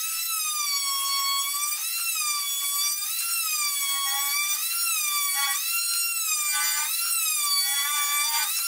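Oscillating multitool with a plunge-cut blade cutting the excess off glued wooden strips: a loud, high-pitched whine whose pitch dips and recovers about once a second.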